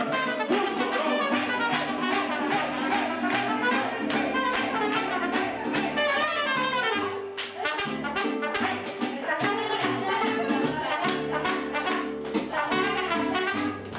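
Live mariachi band playing an upbeat song, with trumpets leading over a steady strummed beat.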